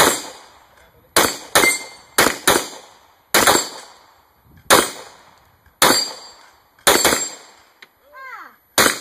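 Rapid, irregular handgun fire from two shooters, about ten shots in all, as they race to knock the steel paddles of a dueling tree across. Some shots are followed by a brief ring of steel being hit.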